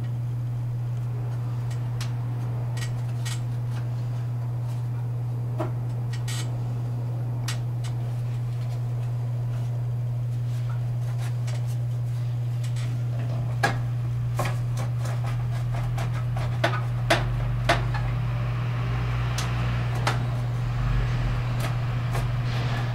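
A steady low hum with scattered light clicks and clinks of hard objects being handled. A cluster of sharper knocks comes a little past halfway.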